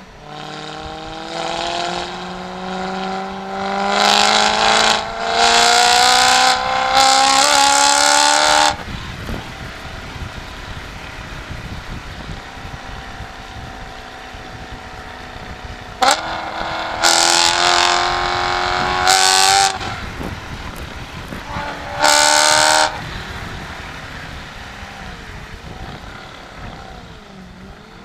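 BMW M3 engine and exhaust under hard acceleration, heard from outside the car. The pitch climbs steadily for the first eight or nine seconds and then cuts off as the throttle closes. After a quieter stretch of cruising, a sharp crack about sixteen seconds in starts another loud rising pull, and a short loud burst follows around twenty-two seconds.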